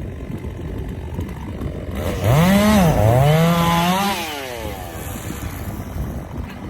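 Chainsaw revved twice, about two seconds in: its pitch climbs and drops, then climbs again before it falls back. A steady low engine rumble runs underneath.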